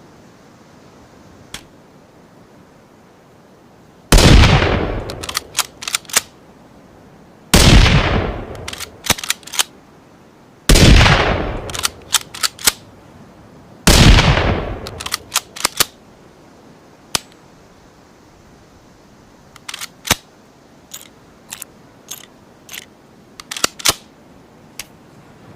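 Gunshot sound effect for a Ruger American bolt-action rifle. It fires four times about three seconds apart, and each shot has a long fading echo followed by a quick run of sharp mechanical clicks. A scatter of lighter clicks comes near the end.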